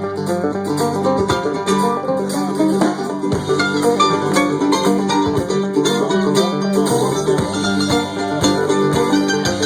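Live bluegrass band playing an instrumental break: quick plucked notes from banjo, guitar and mandolin over a steady bass line.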